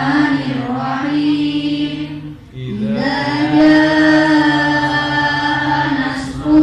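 Female voices chanting together with long, drawn-out held notes, breaking off briefly about two and a half seconds in before another long held note.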